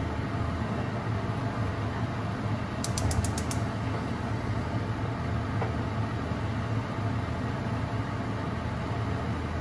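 Gas stove burner's spark igniter clicking rapidly, about five clicks in half a second, about three seconds in, as the burner knob is turned. A steady low hum runs underneath.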